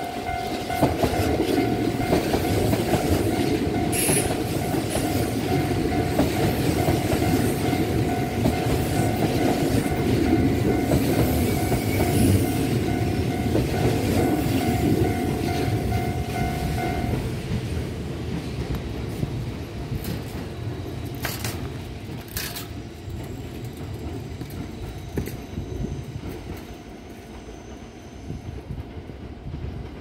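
Kintetsu 22000/22600-series electric limited express train passing close by, its wheels running loudly over the rails, then fading away in the second half. A level crossing warning bell rings steadily and stops about two-thirds of the way through, as the train clears the crossing.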